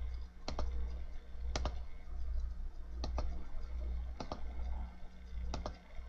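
Computer mouse clicked five times, about once a second, each a short double click of press and release, over a steady low hum.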